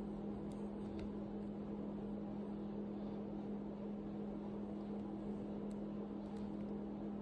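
A steady low hum with a few faint, light clicks from a pick working the pins of a 50mm Ace Hardware padlock.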